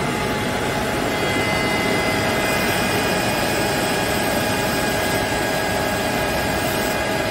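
KAESER AirCenter SM12 7.5 kW rotary screw air compressor running steadily just after start-up, loaded and building pressure, with its integrated refrigeration air dryer running too. A dense, even machine noise with a few steady whining tones over it.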